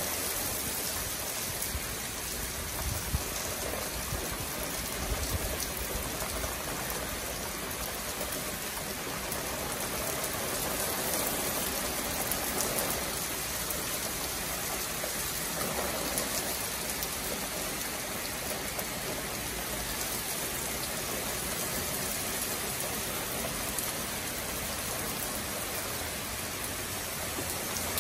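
Heavy rain pouring steadily onto lawns, trees and a paved road.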